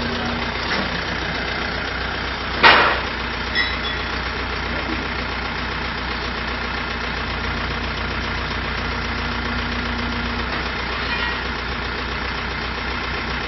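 Compact tractor's engine running steadily while its front end loader is raised and lowered, with a sharp knock about two and a half seconds in and a lighter one about a second later.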